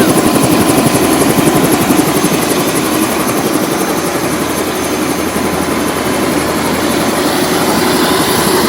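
Helicopter running, a loud, steady rotor and engine noise with a fast pulsing beat.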